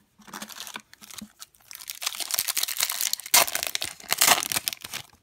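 Wrapper of a Topps 2017 WWE trading card pack being crinkled and torn open by hand, the crackling loudest in the second half.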